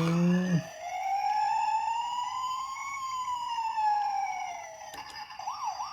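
Electronic siren from a toy ambulance's sound module: a slow wail rising for about three seconds and then falling. After a click near the end, it switches to a fast warble of about four cycles a second.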